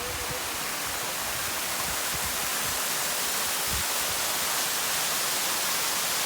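Waterfall rushing steadily, a constant hiss of falling water, with a few faint low thumps.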